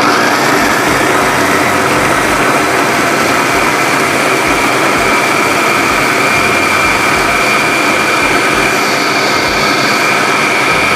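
Mitochiba electric food chopper running at a steady high speed, its blades whirring as they chop red bird's-eye chilies, shallots, garlic, kaffir lime leaves and kencur dry, with no water added, into a coarse spice paste.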